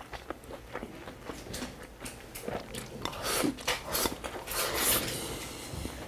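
Close-miked eating: a person chewing a mouthful of braised pork and purple rice, with short mouth clicks and two louder stretches of wet eating noise about three and five seconds in.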